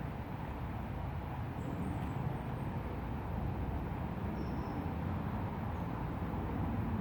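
Crumlin River rushing over rocks: a steady low rush of flowing water, with a few faint high chirps on top.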